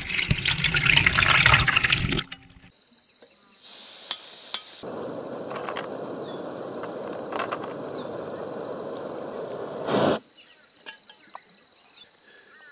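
Water pouring from a plastic bottle into a pot, splashing, for about two seconds. Then comes a steady rushing hiss from a canister gas stove burning under the pot, which stops abruptly about ten seconds in, over the steady high buzz of insects.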